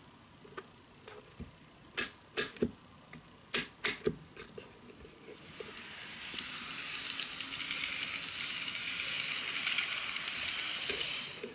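Several sharp clicks about two to four seconds in, then an N-gauge model train running on the track. Its rolling noise builds as it comes near, stays steady as it passes close by, and drops away sharply near the end.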